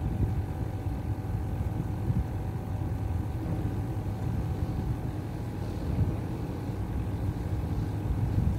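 A motor running steadily: a low rumble with a faint steady hum above it.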